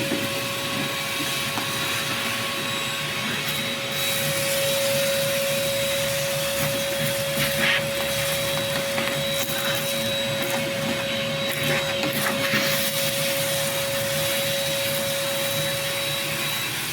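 Vacuum cleaner running steadily with a constant hum and high whine while sucking leftover seed out of a planter's seed hopper, with a few brief rattles.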